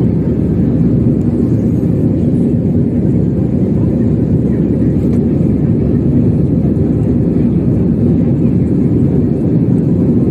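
Steady cabin noise of a jet airliner in flight, engines and airflow heard from inside the passenger cabin: a low, unchanging roar.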